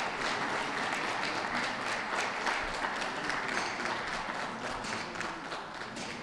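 Audience applauding, dense clapping that slowly dies down toward the end.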